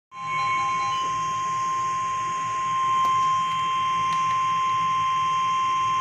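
NOAA Weather Radio 1050 Hz warning alarm tone: one long, steady, high single-pitched alert tone announcing a severe thunderstorm warning, with a few short beeps in the first second.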